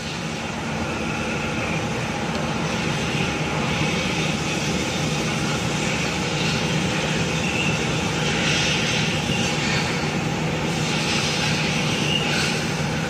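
A steady mechanical drone with a faint low hum, unchanging throughout.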